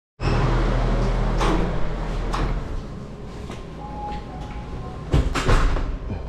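A few clicks and knocks, then a door swinging shut with a couple of heavy thuds near the end, over a low rumble in the first couple of seconds.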